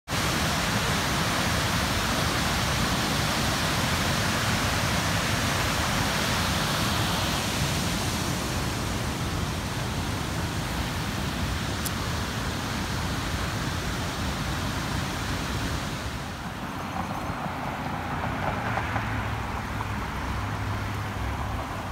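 Swollen St. Vrain River at high flow, about 800 cfs: water pouring over a weir as a loud, steady rush. The rush grows somewhat quieter after about eight seconds and again about two-thirds through.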